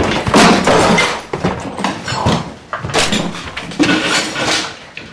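Fight sound effects: a quick run of punch and hit impacts, about two a second, each a sharp smack with a short noisy tail.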